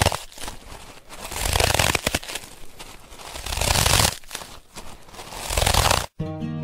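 A rushing noise with fine crackling that swells and fades three times, cut off about six seconds in; a guitar tune starts just before the end.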